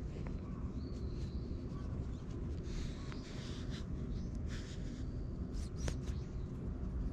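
A hand patting and rubbing a tabby cat's back near the base of its tail: soft fur rustling and scratchy strokes close to the microphone. A steady low rumble runs underneath.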